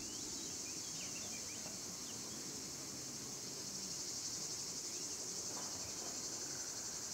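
Quiet, steady, high-pitched chorus of field insects such as crickets, running without a break.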